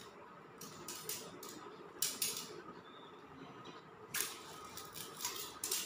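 Small knife cutting into a green papaya leaf stalk: a handful of short, crisp crunching scrapes. The sharpest come about two seconds in and just after four seconds.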